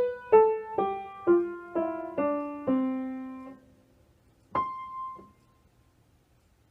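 Piano playing the closing phrase of a beginner piece: single notes struck about every half second, stepping down in pitch to a low note that is held and fades. One higher note follows about a second later.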